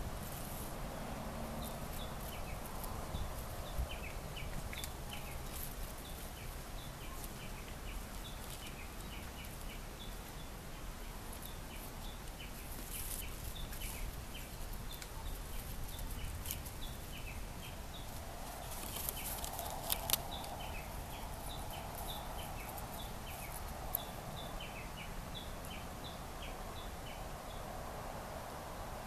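Small birds chirping in short, high, repeated notes, over a low steady background rumble, with a couple of sharp clicks about two-thirds of the way through.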